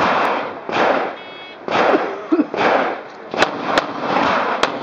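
A shot timer's electronic start beep about a second in, followed by a string of loud pistol shots, the last few short and sharp.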